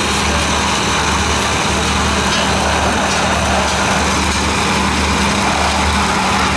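Countertop electric blender running steadily, blending a milkshake: a constant motor hum.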